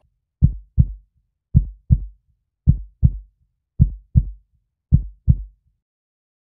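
Heartbeat sound effect: five low double thumps, lub-dub, about one beat a second, which stop about a second before the end.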